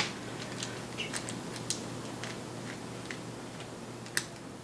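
Scattered small clicks and ticks of a screwdriver taking out the small screws that hold a laptop's screen bracket, with a sharper click right at the start and another about four seconds in.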